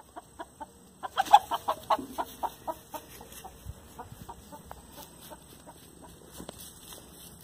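A hen clucking. A few faint clucks, then about a second in a loud, quick run of clucks, several a second, that slows and fades into sparser, softer clucks.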